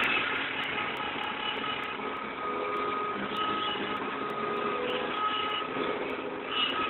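Claas Senator combine harvester running while harvesting: a steady mechanical clatter with several steady whining tones from its drives.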